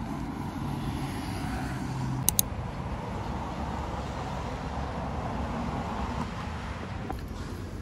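Steady city road traffic noise, a low rumble of passing cars. Two sharp clicks come close together a little over two seconds in.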